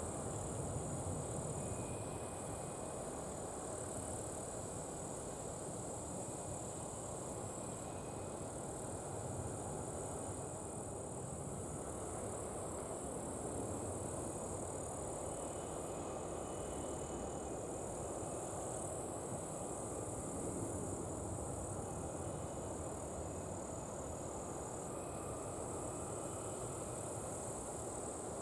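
Steady, distant rumble of a Boeing 737-800's CFM56 jet engines on approach, level and unchanging. Over it runs a constant high-pitched insect chorus, with a few faint short chirps.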